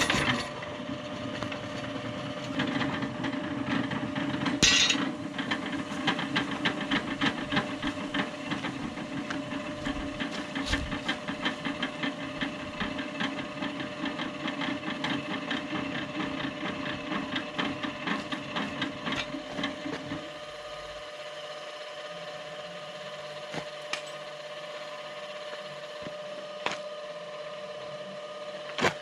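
Mechanical running noise from a 1961 Zetor 25 tractor's engine and the electric starting cart coupled to its crank: a dense, rapid rattle over a steady hum. About 20 seconds in the lower rumble cuts out, leaving the hum and a few sharp clicks.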